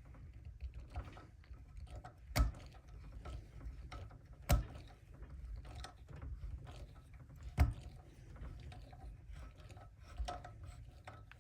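A driver working the Torx T15 screws out of a multitool clamped in a vise: small metallic clicks and handling noise, broken by three sharp knocks and a fainter fourth near the end.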